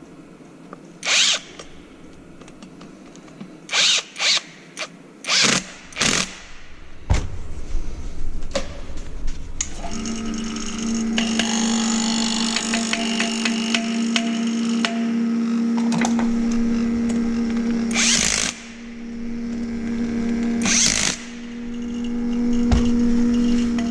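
Power tool in several short bursts, then from about ten seconds in a steady mechanical hum with a clear low tone, broken twice by louder bursts.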